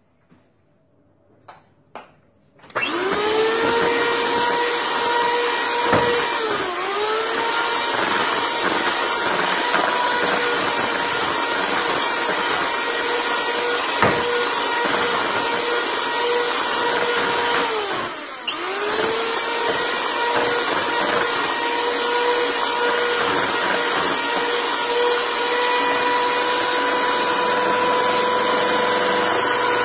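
A couple of clicks, then a 10-speed, 250 W electric hand mixer starts about three seconds in and runs with a steady whine, beating flour into cake batter. Its pitch dips briefly twice.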